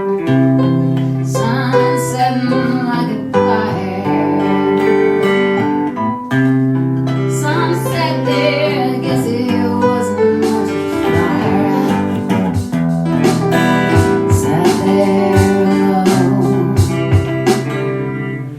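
Acoustic guitar playing a chord progression, picked and strummed, with low bass notes changing every couple of seconds; the playing drops off right at the end.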